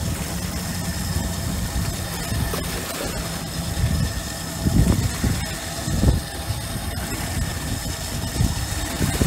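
Small outboard motor running steadily, with a few dull low thumps about five and six seconds in and again near the end.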